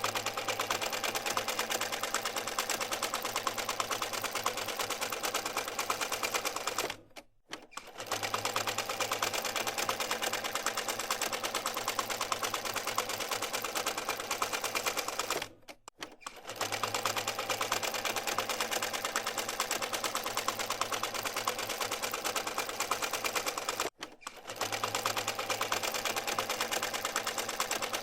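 Treadle sewing machine running at a steady fast pace, its mechanism clattering in rapid, even ticks over a low hum. It stops briefly three times, about every eight seconds, and starts up again each time.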